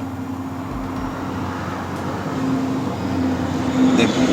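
Steady motor-vehicle hum with traffic-like background noise, growing a little louder near the end.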